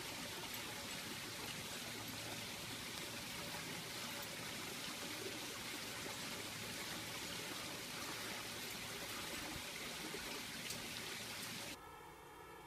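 A steady, even hiss of background noise with no distinct events. About a second before the end it cuts abruptly to a quieter hum with a few steady tones.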